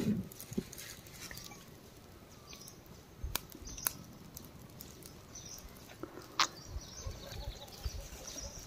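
Faint bird chirps with a few sharp clicks and low knocks scattered through.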